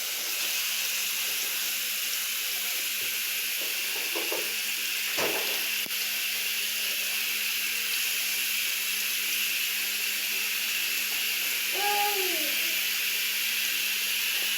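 Food frying in a pan with a steady sizzle. A short faint voice is heard about twelve seconds in.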